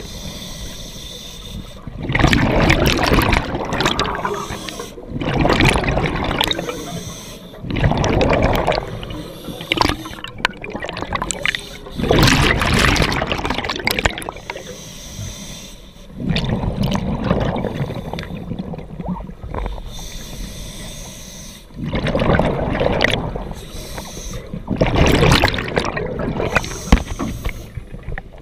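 A scuba diver breathing through a regulator underwater: loud bursts of bubbles gurgling every three to five seconds, with a quieter steady hiss between them.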